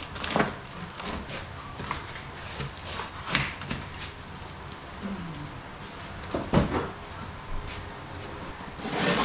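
Cardboard boxes being handled: flaps opened and rustled, boxes lifted and set back down, giving a series of short knocks and scrapes. The loudest is a dull thud about six and a half seconds in.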